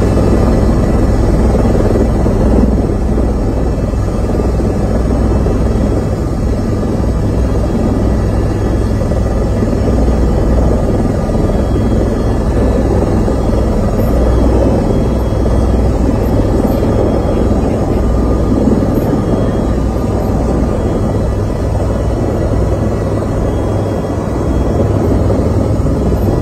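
Helicopter in flight heard from inside the cabin: a loud, steady drone of rotor and engine noise, deep and heavy at the bottom, with faint steady whining tones above it.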